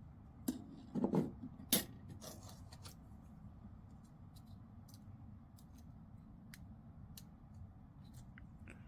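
Small plastic N-scale bridge and track parts being handled and pushed together in a test fit. A cluster of sharp clicks and light knocks comes in the first two seconds or so, then faint, scattered ticks.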